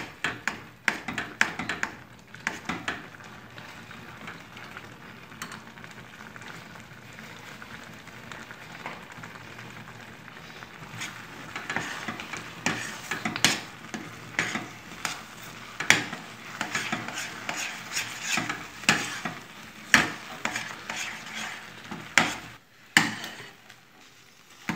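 Thick flour-and-water dough being stirred and scraped in a stainless steel pot over the heat, with irregular clicks and knocks of the utensil against the pot over a steady hiss. The dough is being cooked until it pulls away from the bottom of the pot.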